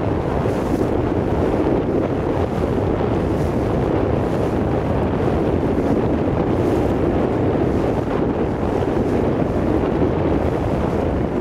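Steady rushing of wind buffeting the microphone over open water.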